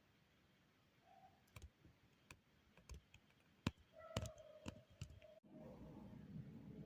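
Scattered small clicks and taps of toy pieces being handled, with a brief faint tone among them. About five and a half seconds in, the sound cuts out for a moment, and a low rustling follows.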